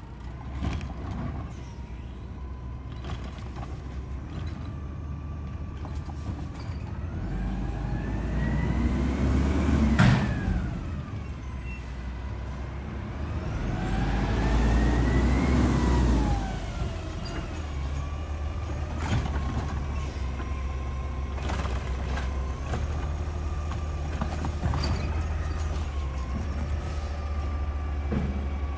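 Mack garbage truck's engine running near the carts, revving up and back down twice for a few seconds each, with clanks and a sharp burst of sound about ten seconds in.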